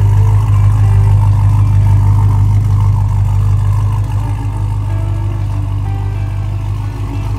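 Engine of a red custom early-1970s Chevrolet Nova idling steadily through its dual exhaust, a deep even hum that eases a little in the second half.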